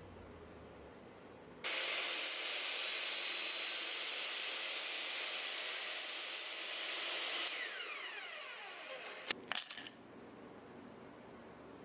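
A power tool switched on with a sudden start, running at a steady high-pitched whine for about six seconds, then switched off and spinning down with a falling whine, followed by a few sharp knocks.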